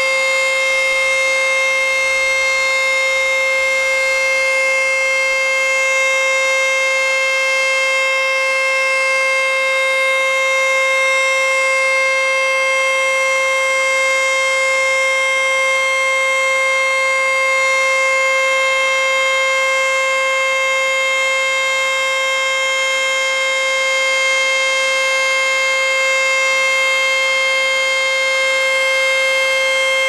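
ACA Screamer S-2 electromechanical warning siren sounding a full alert: one loud, steady siren tone held at a constant pitch.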